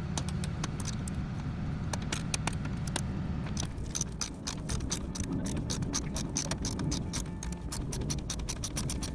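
Socket ratchet clicking as a 10 mm bolt is loosened: a few scattered clicks at first, then fast, even clicking from about a third of the way in as the handle swings back and forth.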